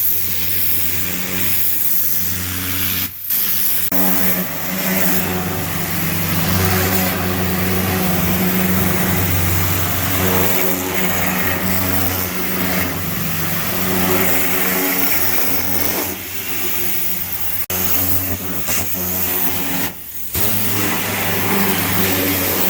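Gas-engine pressure washer running steadily, its high-pressure water spray hissing onto the patio floor. The sound drops out briefly about three seconds in and again near the end.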